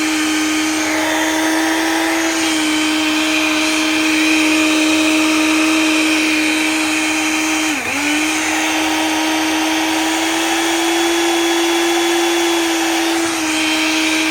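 Hyundai HABT-9430 electric coffee grinder running at full speed, grinding coffee beans for a second round to get a finer grind. It is a loud, steady high hum whose pitch dips briefly and recovers about eight seconds in.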